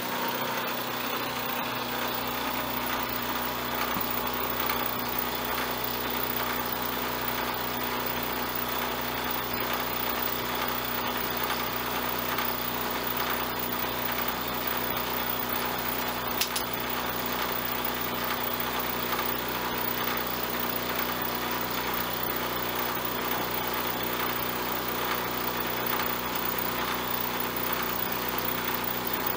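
Vertical milling machine running steadily while a 3/4-inch end mill cuts a slot about 0.17 inch deep in an aluminium bar held in the vise: a continuous motor and spindle hum with the even noise of the cut.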